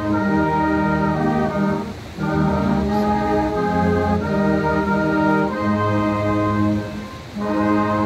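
Brass band playing a slow hymn in long held chords, with short breaks between phrases about two seconds in and near the end.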